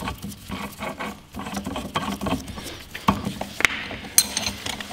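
Metal tools clinking and scraping as a flywheel puller is threaded onto the flywheel of a Peugeot Speedfight 2 scooter engine, with two sharper metal knocks about three seconds in and a high, ringing metal clink near the end.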